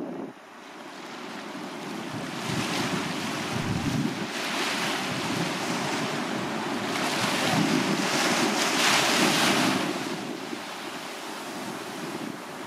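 Small sea waves breaking and washing up a sandy beach: a rushing surf hiss that swells in several surges, loudest about two-thirds of the way in, then eases off.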